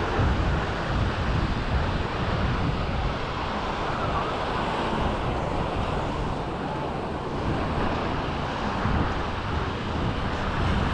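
Steady rush of sea surf mixed with wind buffeting the microphone.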